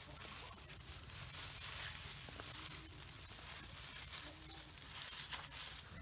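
Dry straw nest bedding rustling and crackling as hands push through it and lift eggs out from under a sitting goose.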